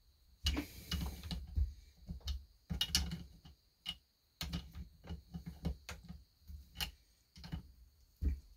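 Ratchet clicking and a socket knocking on a nut on a Husqvarna 240 chainsaw as it is worked back and forth in irregular short strokes. The socket won't lock onto the nut, which is stripping.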